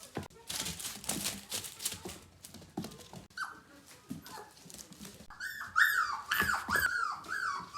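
Three-week-old Gerberian Shepsky (German shepherd–husky mix) puppy whimpering, a quick run of high, falling cries about two a second starting about five seconds in; the puppy is crying for its mother. Before that, soft scuffling and clicks.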